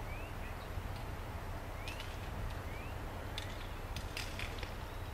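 Small birds giving short rising chirps over a steady low rumble, with a few sharp clicks about two and four seconds in.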